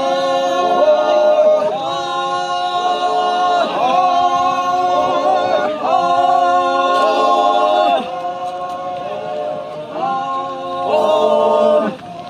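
A group of voices singing a traditional chant without instruments, in long held notes that change about every two seconds. The singing drops away near the end.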